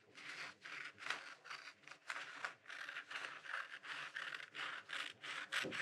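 Scissors cutting through a sheet of printer paper, a steady run of short snips about two or three a second.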